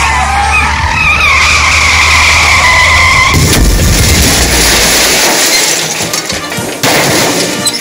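Car tyres squealing in a long skid over a low engine rumble. A little over three seconds in, the squeal gives way to a loud, rough noise.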